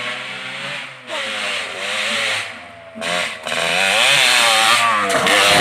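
Small motorcycle engine revving up and down, its pitch wavering and rising, under heavy hiss, getting louder about three seconds in.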